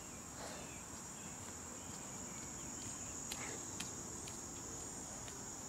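A steady, high-pitched drone of insects, with a few faint clicks.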